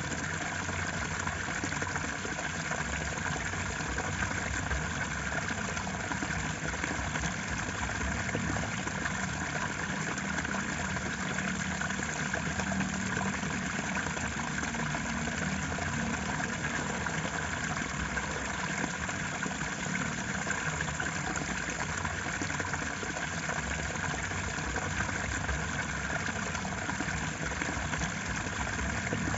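Flowing water rushing steadily and evenly, with no breaks.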